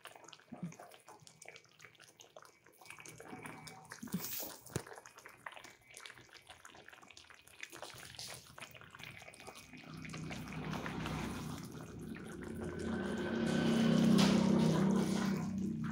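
Coconut-milk tauco gravy with fish bubbling at a simmer in a wok: soft, irregular bubbling and spitting that grows louder over the last few seconds.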